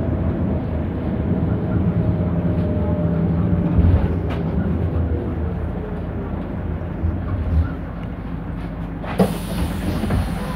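Perkins Phaser 110Ti turbo-diesel of a 1998 Autosan H6-20.03 bus running under way, heard from inside the cabin as a steady drone with a faint whine that falls slowly in the first few seconds. There is a sharp knock about four seconds in, and a hiss starts suddenly about nine seconds in.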